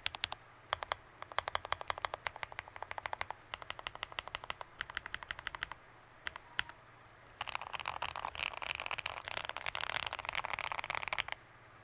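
Mechanical keyboard fitted with Kailh BCP linear switches (Kailh Black stems in Cherry HG tops and Jwick red bottoms, 70 g long two-stage springs) being typed on. A run of keystrokes, a few single taps about six seconds in, then a faster, denser burst of typing from about seven and a half seconds that stops shortly before the end.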